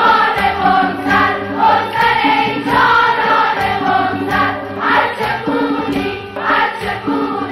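A girls' choir singing a Persian song together, continuously, with no break.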